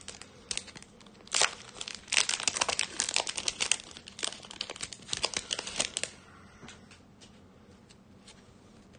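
Foil wrapper of a Yu-Gi-Oh! Legendary Duelists Season 1 booster pack crinkling and tearing as it is ripped open by hand, a dense run of crackles. The crinkling stops about six seconds in, leaving a few faint ticks.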